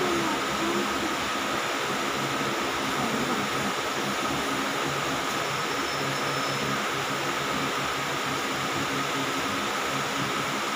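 Steady, even background noise of a hall, like fans or air conditioning running, with a faint constant high whine.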